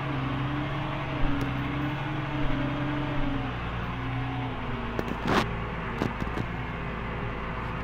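McCormick G135 Max tractor engine running steadily under ploughing load, heard from inside the cab, its drone wavering slightly in pitch. A few sharp knocks and rattles come about five to six and a half seconds in.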